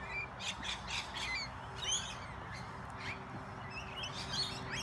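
Flock of lorikeets squawking and chattering at a feeding spot: many short, shrill calls overlapping and coming in quick bursts.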